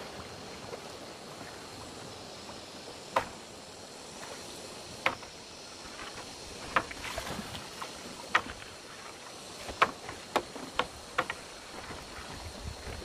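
Shallow river water running steadily around a bamboo raft, with irregular sharp knocks as the bamboo punt pole strikes the stones and the raft, coming more often in the second half.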